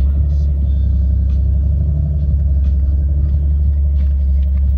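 Steady low rumble of a Jeep driving on a dirt road, engine and road noise heard from inside the cabin.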